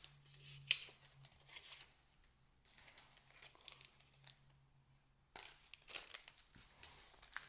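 Card packs and trading cards being handled: intermittent crinkling of foil wrappers and light rustling and clicking of cards, with a sharper click under a second in and a quieter stretch in the middle.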